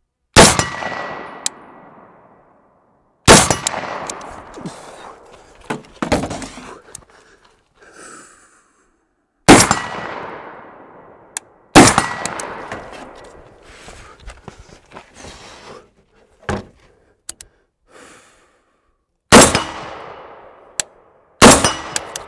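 Seven rifle shots from an ADM UIC-10A in .308, fired at uneven intervals, each followed by a long fading echo. The steel targets ring after some of the shots.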